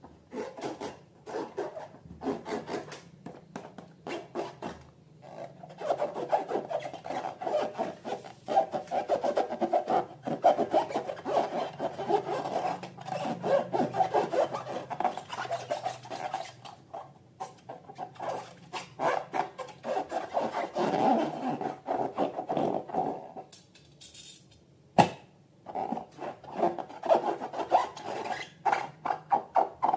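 Hands working slime-making materials with fast, continuous rubbing and rasping strokes. The strokes break off briefly twice, and there is one sharp click about two-thirds of the way through.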